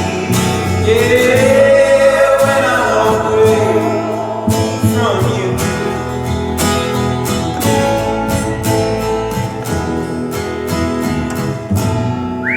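Live acoustic band playing: voices holding long notes over plucked and strummed acoustic guitar for the first few seconds, then a steady plucked rhythm. A whistled note slides up right at the end.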